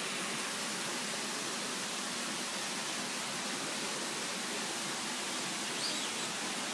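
Steady rush of a small waterfall splashing into a pond, an even hiss with no change in level. A faint high chirp sounds near the end.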